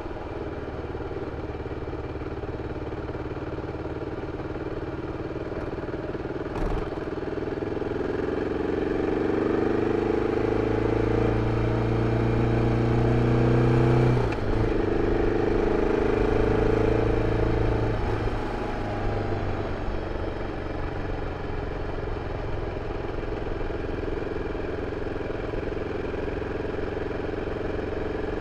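BMW F 650 CS single-cylinder engine running through its original exhaust: a steady low-rev note that rises to a harder pull for about ten seconds, with a short break in the middle like a gear change, then settles back to a quieter steady note.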